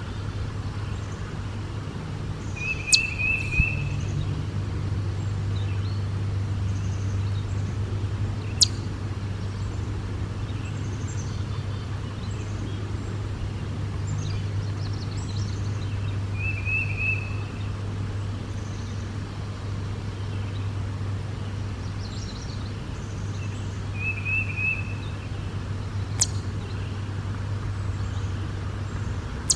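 A steady low rumble, with a small bird's short chirping trill heard three times and three sharp clicks.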